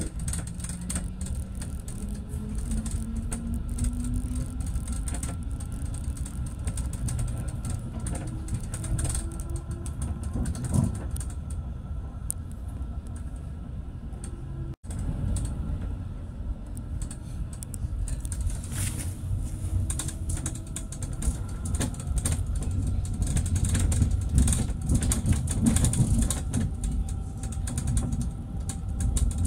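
Tram running on its rails, heard from on board: a steady low rumble with creaks and clicks from the car, and an electric motor whine that rises in pitch over the first ten seconds or so as the tram picks up speed. The sound cuts out for an instant about halfway through.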